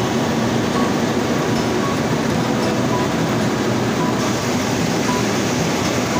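Tea-processing machinery running steadily, a continuous mechanical din on the factory floor where a belt conveyor carries processed tea.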